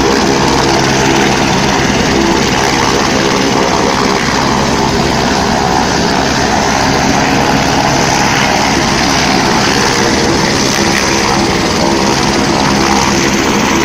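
Single-engine turbine helicopter running on the helipad with its rotor turning: a loud, steady drone of turbine and rotor that holds level throughout.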